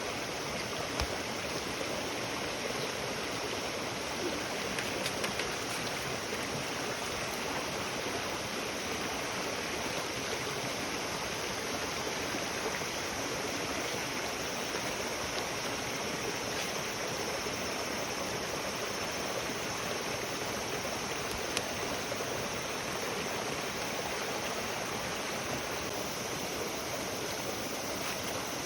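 Steady rushing water, as of a stream, with a few faint sharp pops from the burning campfire.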